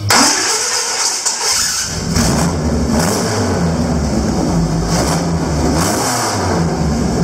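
Formula MTX race car engine with four carburettor intakes catching right at the start, its revs climbing over the first couple of seconds, then running with the throttle blipped up and down. This is a first start after a basic carburettor setting.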